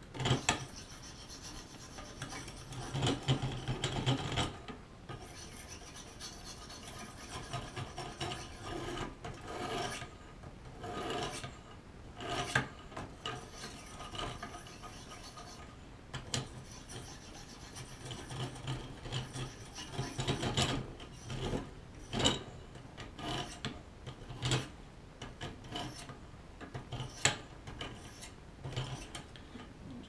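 Sharpening stones on the guide rods of a clamped knife sharpener, stroked along both sides of a Gerber multi-tool's knife blade to polish the edge. Repeated scraping strokes in irregular runs, with brief pauses.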